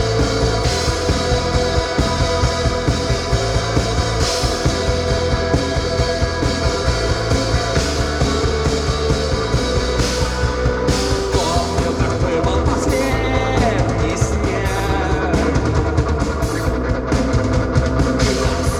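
Rock band playing live, an instrumental passage with drum kit, bass and sustained guitar chords; a lead guitar line bends up and down from about eleven seconds in.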